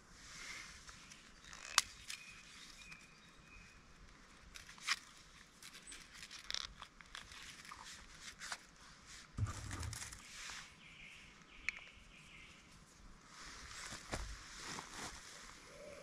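Ferro rod scraped with a steel striker to throw sparks into tinder: short rasping strikes and sharp clicks at irregular intervals, with soft handling knocks.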